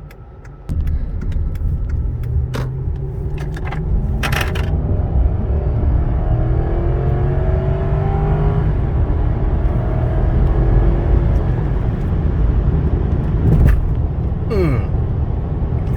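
Road and wind noise of a Lexus LS430 cruising at highway speed, heard from the car, which jumps much louder about a second in and then stays a steady rumble. A few sharp clicks sound over it.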